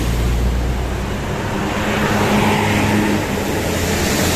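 A road vehicle's engine running close by, a steady low hum that fades about a second and a half in while a rush of road noise swells through the middle, as the vehicle goes past.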